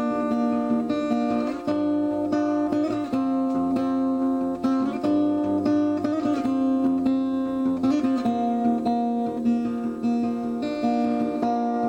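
Acoustic guitar music: plucked and strummed notes that ring on and change every second or so.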